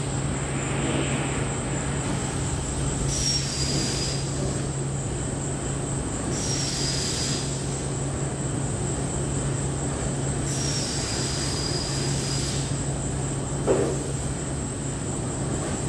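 Steady machinery hum with a faint high whine. Three hissing bursts, each with a short falling whistle, sound a few seconds apart, and a single knock comes near the end.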